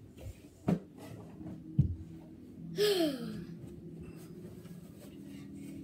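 Two dull thumps about a second apart as a child jumps about a small room, then a short breathy cry that falls in pitch, over a faint steady hum.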